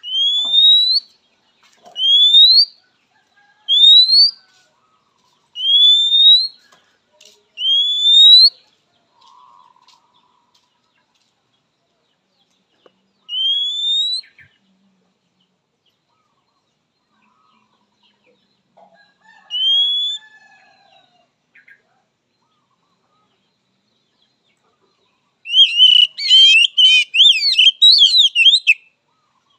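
Oriental magpie-robin (kacer) calling: a series of clear rising whistles, each about a second long, five of them about two seconds apart, then two more spaced further out. Near the end comes a fast, varied burst of song lasting about three seconds.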